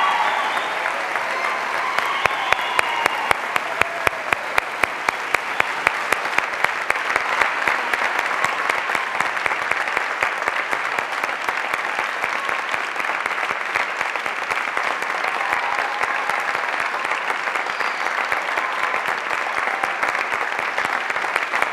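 Sustained applause from a large audience in an auditorium. For a few seconds early on, individual louder claps stand out above the steady clapping.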